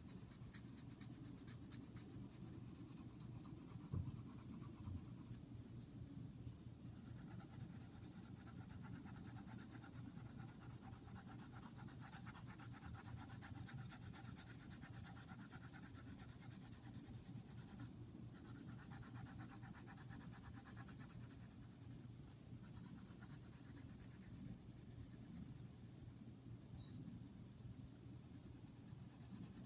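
Pencil scratching on paper in quick back-and-forth shading strokes, faint and continuous, with a soft knock about four seconds in.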